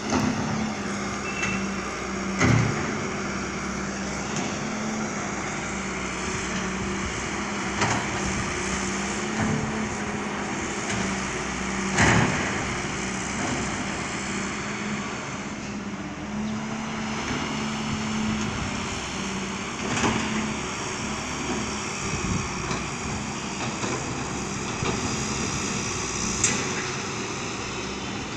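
Wheeled excavator's diesel engine running steadily while digging, with a few sharp knocks, the loudest about twelve seconds in.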